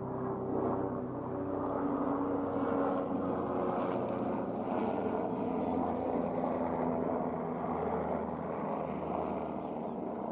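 A steady engine drone whose pitch slowly drifts lower, with a brief splash of water around the middle as a chicken is lifted out of a tub of scalding water.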